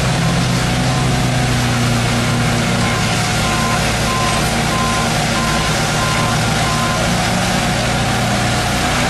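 Steady running of paving machinery engines: the bridge deck finisher's air-cooled gasoline engines alongside a concrete mixer truck. A vehicle's reversing beeper sounds about twice a second until about seven seconds in.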